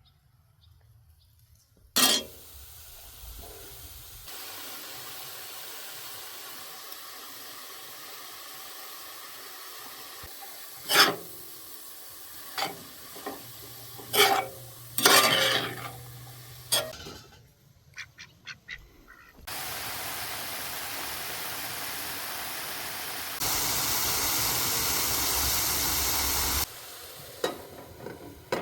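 Food sizzling in a hot pan, a steady frying hiss that comes and goes in stretches, with several sharp knocks and clinks of a utensil stirring against the pan in the middle.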